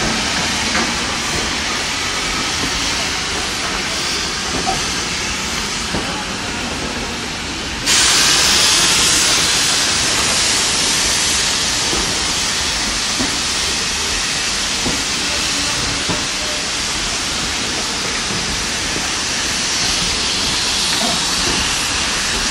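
Heritage steam train drawing out past a platform behind an LMS tank locomotive, with a steady hiss of steam. About eight seconds in, the hiss jumps suddenly louder and brighter and carries on at that level as the coaches go by.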